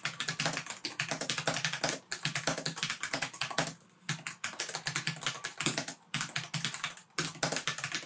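Fast typing on the XMG Core 16 laptop's Cherry MX Ultra Low Profile tactile mechanical key switches: rapid runs of sharp clacking keystrokes, broken by a few brief pauses.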